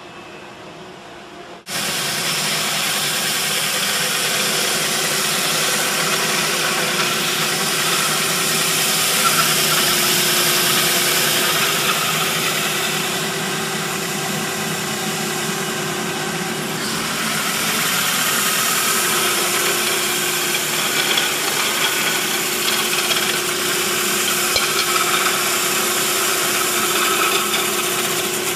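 Holytek round rod sanding machine running, sanding a wooden dowel fed through its rollers: a loud, steady whirring noise with a steady hum, starting abruptly about two seconds in.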